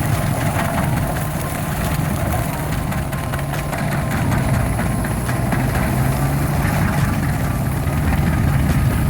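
Heavy diesel engine of stump-clearing machinery running steadily under load, with many short irregular clicks over the hum.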